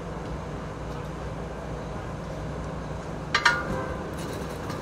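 A metal grill grate set down onto a charcoal burner: a sharp double clank about three and a half seconds in, with a brief metallic ring. A steady low rumble runs underneath.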